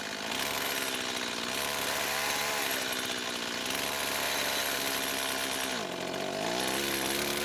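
Two-stroke petrol chainsaw running at full throttle, its bar tip held against the cap of a glass beer bottle to knock the cap off. The engine note sags briefly a little before six seconds and climbs back up.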